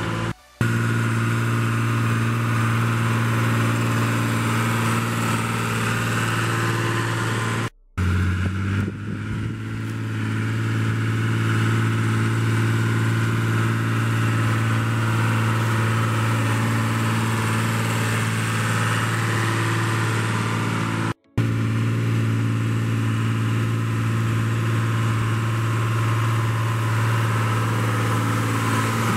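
John Deere 3350 tractor's diesel engine running steadily under load as it pulls a mounted plough. The sound drops out briefly three times: just after the start, about a quarter of the way through, and about two-thirds through.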